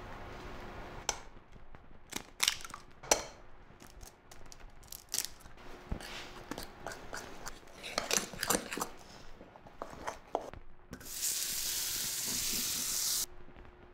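Scattered clicks and taps of eggs and milk going into a ceramic bowl and being mixed into a batter. Near the end comes about two seconds of loud, even sizzling from a hot frying pan on the stove, which cuts off sharply.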